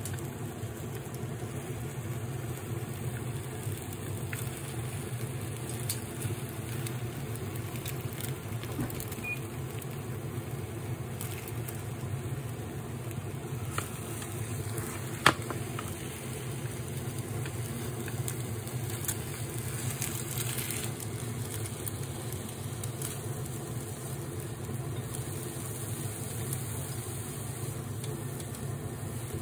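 Steady low hum of a running kitchen induction hob under a tamagoyaki pan, with a faint hiss of egg cooking and light chopstick scrapes. A single sharp click of chopsticks against the pan comes about fifteen seconds in.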